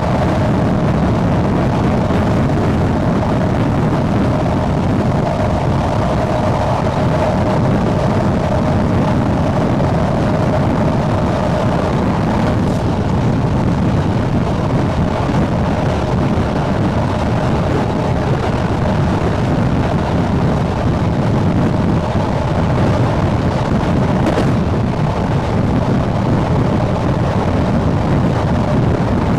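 SNCB AM80 electric multiple unit running at speed: a steady rumble of motors and running gear, with a faint motor whine that fades about twelve seconds in. Wind buffets the microphone.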